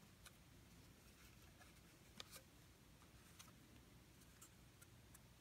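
Near silence: room tone with a few faint, scattered clicks from a plastic DohVinci styler being handled and squeezed.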